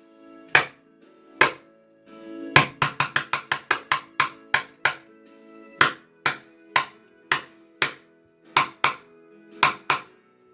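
Acoustic guitar strummed in sharp, separate chord strokes that ring on between them, with a quick run of about ten strums a few seconds in.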